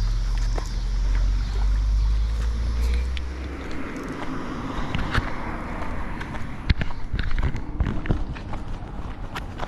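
A passing vehicle's low engine rumble for the first three and a half seconds, fading out, followed by a steady rush of moving water with scattered clicks and taps.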